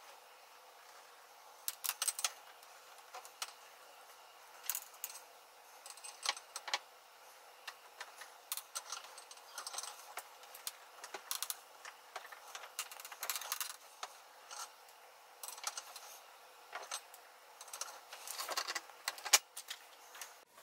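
A sand-filled 5 mm copper tube being wound by hand into a coil around a steel pipe, giving irregular light metallic clicks and scrapes as the copper rubs and taps against the pipe, with a sharper click near the end.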